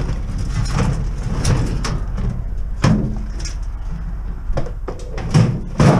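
Knocks and clatter of a gutted microwave oven being carried and set into a van's metal cargo floor, with sharp knocks about three seconds in and again near the end, over a steady low rumble.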